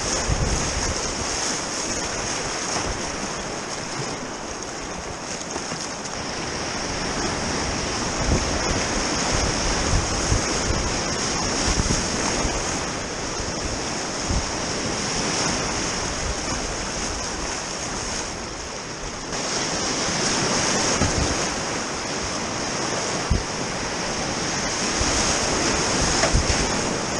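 River Tees whitewater rapids rushing and splashing over the bow of a kayak, steady and loud, with a few short low thuds of water striking the boat and paddle.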